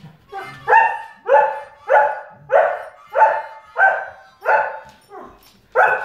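A dog barking at a harmonica ringtone: a steady run of loud, evenly spaced barks, about three every two seconds, with one weaker bark near the end.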